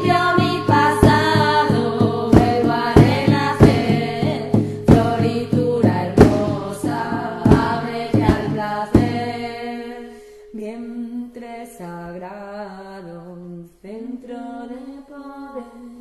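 A chant-like song: a voice singing a slow melody over repeated drum hits; about ten seconds in the drums drop out and the voice carries on alone, quieter.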